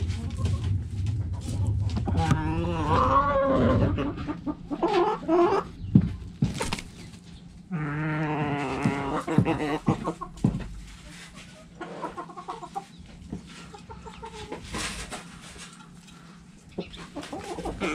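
Backyard chickens clucking and calling in a coop, with two longer drawn-out calls, one about two seconds in and one about eight seconds in, amid short sharp clicks.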